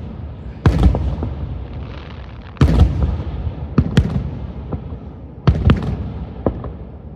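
Aerial fireworks bursting: about seven loud bangs, some in quick pairs, each trailing off in a low rumble.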